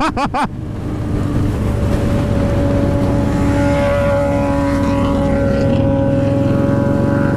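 A loud, steady mechanical drone holding one tone over a low rumble, running unbroken for several seconds.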